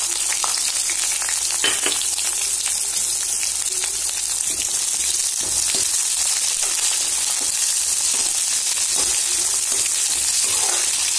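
Sliced onions frying in hot oil in a kadai: a steady, high sizzle, with a metal spoon scraping and tapping the pan as they are stirred.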